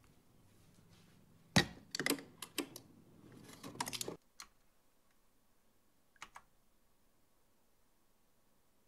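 Refrigerator door dispenser dropping pizza rolls into a glass beer mug: a quick run of clattering knocks against the glass for about two and a half seconds, over a low hum that cuts off suddenly about four seconds in. Two faint clicks follow a couple of seconds later.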